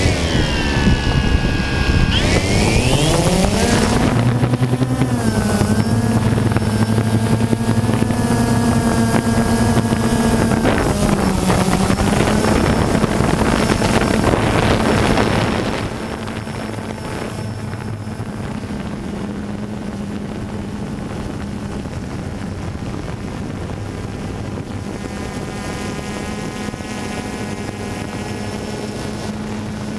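Camera drone's propeller motors whirring. The pitch dips and then climbs over the first few seconds as the motors spin up, then settles into a steady hum, which drops noticeably in loudness about halfway through.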